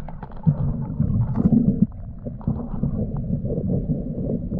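Underwater sound of a diver's gloved hand digging through river-bottom sediment and gravel: a muffled, uneven low rumble with scattered small clicks and knocks.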